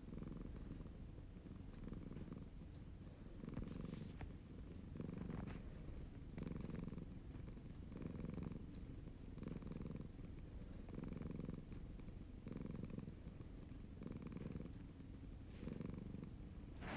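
Siamese cat purring close up, the purr swelling and easing with each breath about every second and a half.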